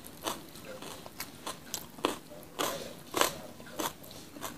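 Close-miked chewing of raw jengkol beans, with sharp crisp crunches about twice a second.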